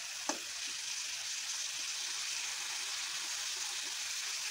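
Potatoes and chopped tomato sizzling in hot oil in a metal kadai, a steady hiss, while a metal spatula stirs them, tapping the pan sharply about a quarter second in and knocking lightly a few times after.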